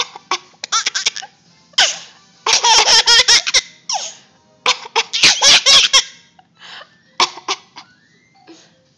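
Small child laughing hard in three long bursts of high-pitched giggling a second or so apart, tailing off into quieter sounds near the end.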